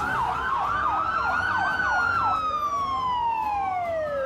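Emergency vehicle sirens sounding together: one in a fast yelp of about three rises and falls a second that stops a little over halfway through, and others in slow wails rising and falling over a few seconds.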